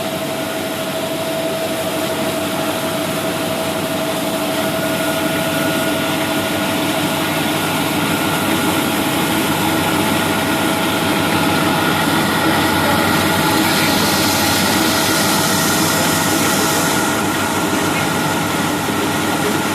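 MHR-1500 combined rice hulling and milling machine running steadily, a constant mechanical hum with a steady whine. A hiss swells for a few seconds past the middle.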